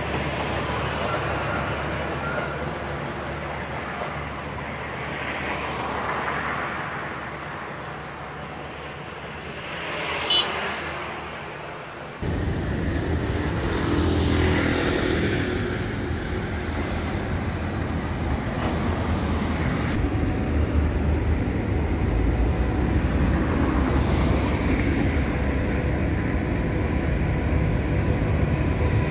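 Road traffic beside a railway line, with vehicles swelling past and a passenger train running alongside. About twelve seconds in it cuts suddenly to a louder, steady low rumble, with an approaching train near the end.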